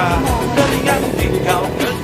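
Background music with a steady beat and a wavering melody line.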